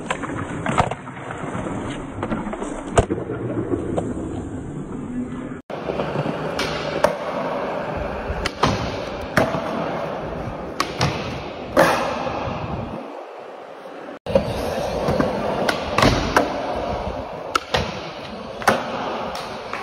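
Skateboard wheels rolling on smooth concrete, broken by a series of sharp clacks as the board's tail pops and the board lands and hits a ledge. The sound cuts off abruptly twice between clips.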